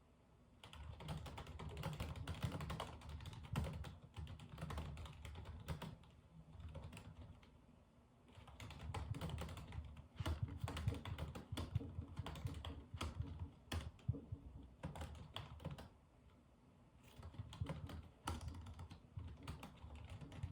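Typing on a computer keyboard: quick runs of key clicks in three stretches, with short pauses between them.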